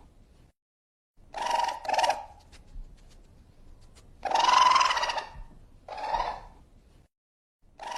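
Raccoon calling: harsh, pitched calls in pairs, the second of each pair shorter, repeated three times with short silent breaks between.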